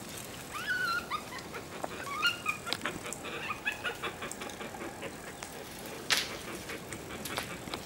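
A series of short, high yelping calls that rise and fall in pitch during the first few seconds, with scattered light clicks and one sharp knock about six seconds in.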